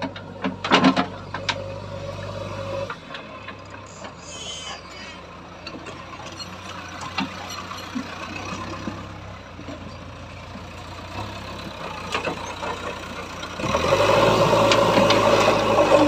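JCB backhoe loader's diesel engine running, with a few sharp metallic clanks about a second in and a brief hiss a few seconds later. Near the end the engine revs up and stays loud as the front loader bucket works into the soil.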